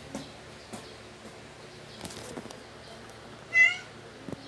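A house cat meows once, a short call about three and a half seconds in, with a few faint clicks and rustles around it.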